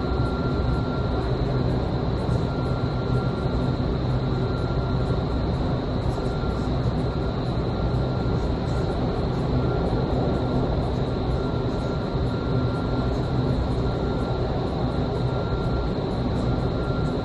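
Vertical wind tunnel running with people flying in it: a steady rush of air and fan noise with a constant high whine.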